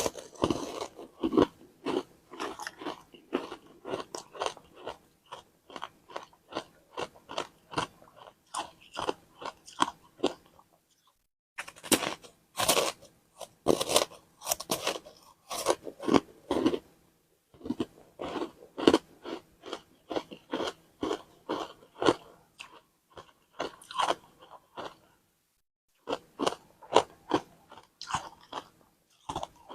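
Frozen matcha ice being bitten and crunched, a dense run of sharp irregular crunches with two short breaks, about eleven seconds in and near twenty-five seconds.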